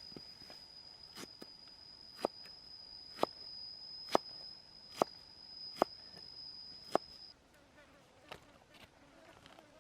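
Six sharp chops about a second apart, a knife striking a cutting board, over a steady high-pitched insect drone that stops about seven seconds in.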